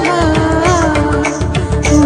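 Indian film-style song: a gliding melody over a regular drum beat.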